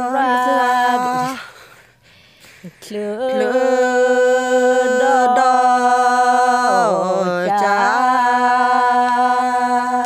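A woman singing a traditional Karen song (hta) unaccompanied, in long held, slowly sliding notes. The voice breaks off about a second and a half in and takes up again a second and a half later, dipping in pitch and climbing back near the seven-second mark.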